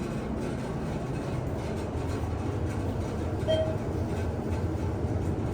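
ThyssenKrupp elevator car rumbling steadily as it travels, heard from inside the cab: a noisy ride. A short high tone sounds about three and a half seconds in.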